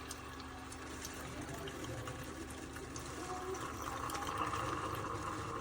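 Keurig K-Supreme Plus single-serve coffee maker brewing: steady running with hot liquid pouring into a cup, the stream growing louder about four seconds in.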